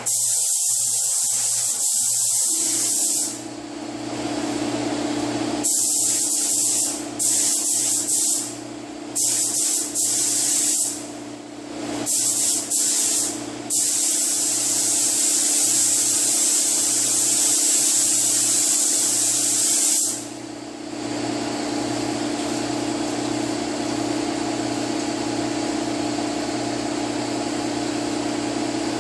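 Automotive paint spray gun hissing as basecoat is sprayed, in trigger pulls of varying length: several short ones, then one long pass of about six seconds that cuts off about twenty seconds in. A steady fan hum runs underneath.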